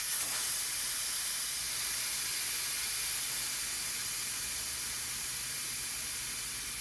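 Air hissing steadily out of a mountain bike tire's valve as the tire is deflated, getting slowly quieter as the pressure drops.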